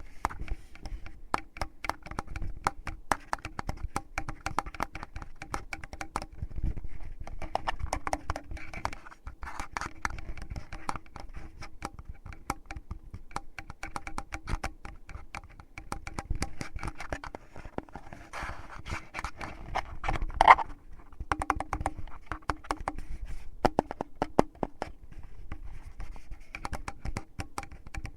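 Fingers rubbing and scratching at a binaural microphone's ears for finger ear-cleaning ASMR: a dense run of crackly scratches and small clicks, with one brief louder squeak about twenty seconds in.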